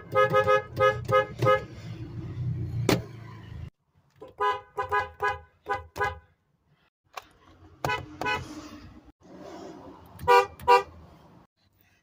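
Car horns tooted in short, quick presses of the steering-wheel pad: a run of about five toots at the start, another run of about five a few seconds later, and two more near the end. Each toot sounds two low notes together.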